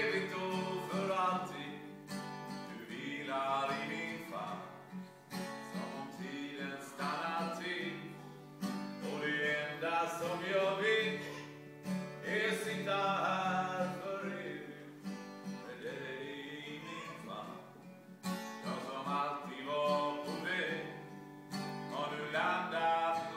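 A man singing a song in Swedish, accompanying himself on an acoustic guitar.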